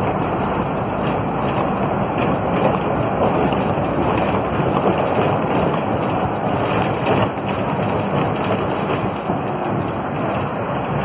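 Cabin noise of a Volvo B9SALF low-floor city bus under way, with its Volvo D9A diesel running: a steady rumble of engine and road noise, with a few short rattles from the body.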